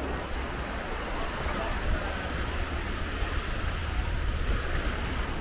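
Beach ambience: surf washing on the shore, with wind rumbling on the microphone.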